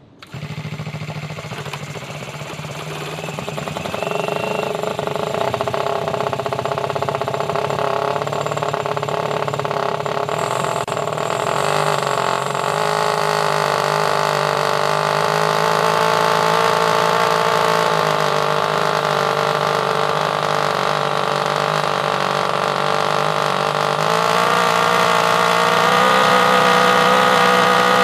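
Small two-cylinder gas engine of a 1/8-scale RC car running steadily on a dyno, driving the wheels against the rollers. It starts abruptly and grows louder over the first few seconds, with a short rising whine, then steps up to higher revs about 24 seconds in.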